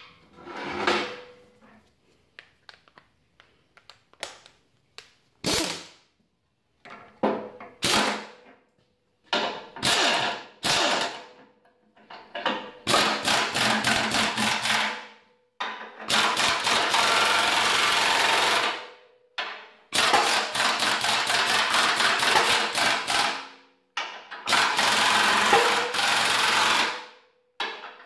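Pneumatic impact wrench hammering, first in short blips and then in four longer runs of a few seconds each. It is driving jacking bolts against a bearing housing to force a seized bearing along the fan shaft.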